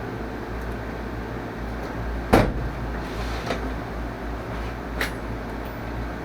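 A few sharp knocks and clacks, the loudest about two and a half seconds in, as tools or gear are picked up and set down, over a steady low workshop hum.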